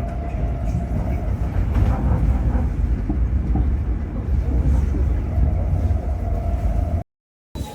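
Steady low rumble of a moving vehicle with a faint steady whine over it, cutting off suddenly about seven seconds in.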